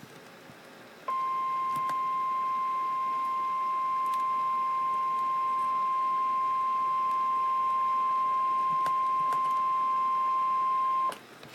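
Emergency alert warning tone of the kind used on NOAA Weather Radio: one steady beep starting about a second in, held for about ten seconds, then cutting off. It announces the tropical storm warning.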